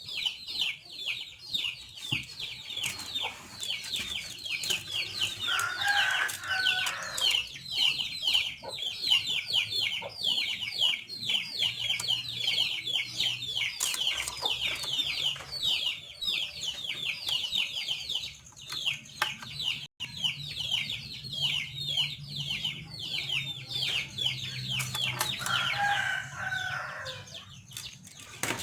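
Dense, continuous high-pitched chirping, like many birds or insects calling at once, with a longer, lower call standing out twice: about six seconds in and near the end. A faint low hum runs beneath.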